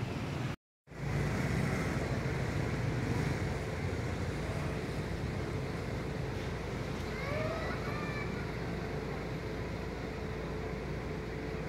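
Steady low outdoor rumble, cutting out for a moment about half a second in. A few faint short chirps come about seven to eight seconds in.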